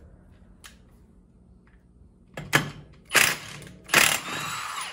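A wrench with a 22 mm socket rattling on the snowmobile clutch's center bolt to loosen it: a click about halfway in, then a short burst of rattling and a longer one of nearly a second near the end.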